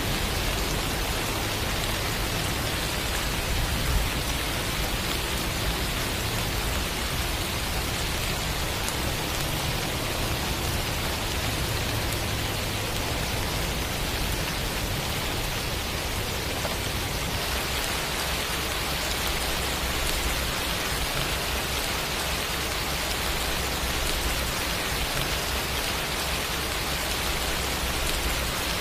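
Steady rain falling in a dense, even patter. A little over halfway through, its tone shifts to a slightly thinner, brighter sound.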